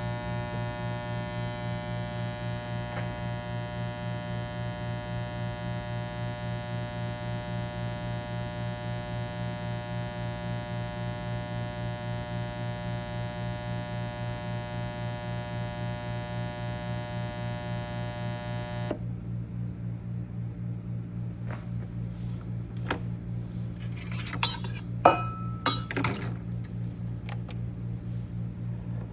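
Breville Bambino Plus espresso machine giving off a steady low buzzing hum with a rich stack of overtones after a shot has been pulled. About two thirds of the way in, the higher buzz cuts out suddenly and a lower hum carries on. Several sharp clinks and knocks follow near the end.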